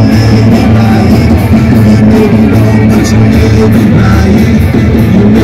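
Loud rock music with a singing voice and a steady beat.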